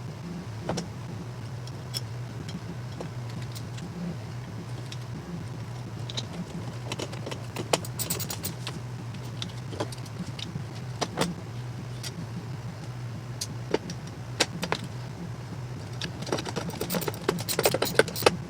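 Scattered clicks and light metallic rattles of small hardware being fitted onto metal drawer slide rails, busiest near the end, over a steady low hum.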